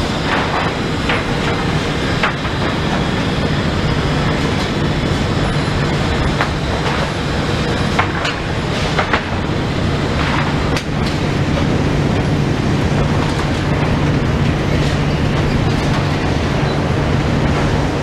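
Sawmill lumber chain conveyors and unscrambler running, a steady low machine hum under rattling chains, with boards knocking and clattering now and then.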